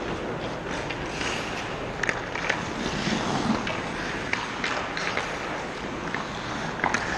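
Ice hockey game sound on a rink: a steady hiss of skates on the ice, broken by about five sharp clacks of sticks and puck.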